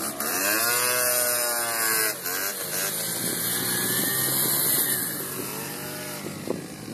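Peugeot Speedfight scooter's small engine revving hard as it pulls away, the pitch climbing for about two seconds, dropping briefly, then rising and falling again. It grows quieter near the end as the scooter rides off.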